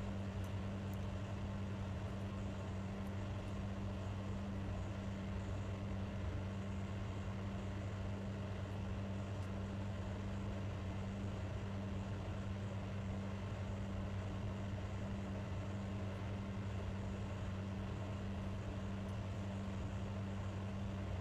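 Steady low hum with a constant background noise, unchanging throughout; no distinct handling clicks stand out above it.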